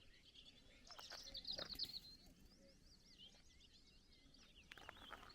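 Faint birdsong: small birds chirping and trilling in quick repeated phrases.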